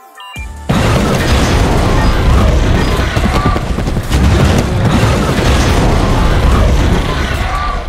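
Loud action-film soundtrack of booming blasts layered with music, cutting in suddenly just under a second in.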